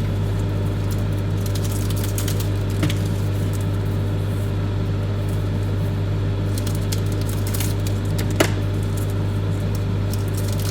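Microwave oven running with a steady low hum while it melts chocolate. Two short clicks break through, the sharper one about eight seconds in.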